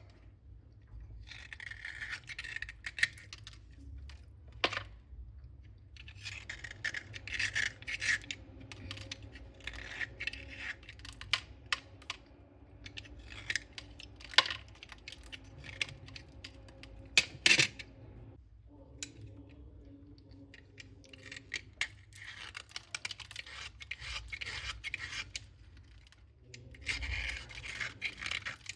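Slate pencils crunching and crumbling in repeated gritty bursts, with crisp cracking clicks and a few sharp snaps, the loudest about 4.5, 14.5 and 17.5 seconds in.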